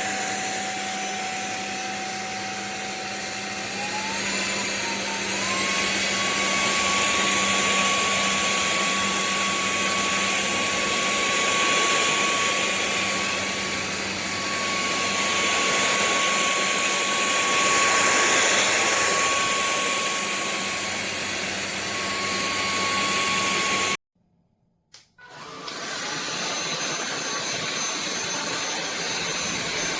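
Sulean X8 cordless stick vacuum running, its motor whine stepping up in pitch about five seconds in as the motor speeds up. Near the end the sound drops out suddenly for about a second, then the vacuum is heard running again.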